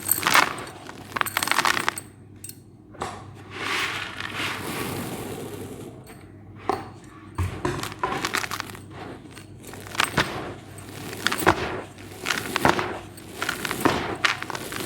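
Dry white cement crumbling in a string of gritty crunches and crackles, with a softer, steadier gritty hiss for a couple of seconds about four seconds in.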